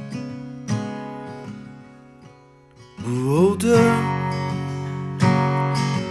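Martin 000-17 steel-string acoustic guitar played solo: picked notes ring and fade over the first half, then a louder strummed chord passage comes in about halfway through.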